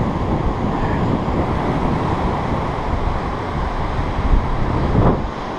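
Strong wind buffeting the microphone over surf washing up a sandy beach, with a brief lull in the wind about five seconds in.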